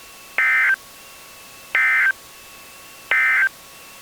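Three short, shrill bursts of Emergency Alert System end-of-message data tones (the SAME 'NNNN' code), evenly spaced about a second and a half apart, signalling the end of the alert broadcast. Faint steady hiss with a thin background whine lies underneath.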